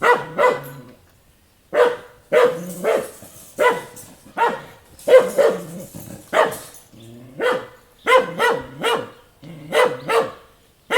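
A dog barking repeatedly, about two barks a second, in short runs of two or three with brief pauses between runs.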